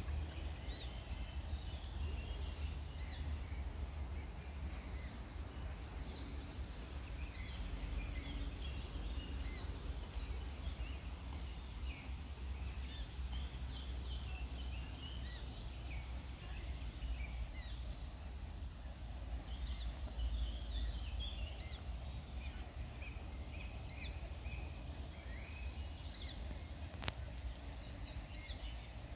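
Small birds chirping and singing in woodland, many short calls overlapping, over a steady low rumble. A single sharp click near the end.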